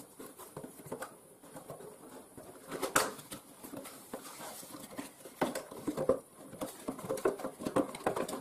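Small cardboard box being opened by hand: flaps pulled back and the plastic packing inside handled, giving irregular scrapes, taps and rustles, with one sharp snap about three seconds in.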